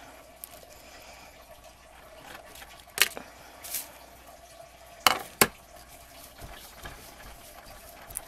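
Rubber stamps being handled and wiped clean on a worktable: a few sharp clicks and taps, one about three seconds in and two close together just after five seconds, with a brief swish between them.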